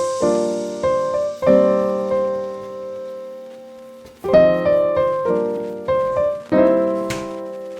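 Background piano music: chords struck and left to ring and fade, with a longer gap about halfway through.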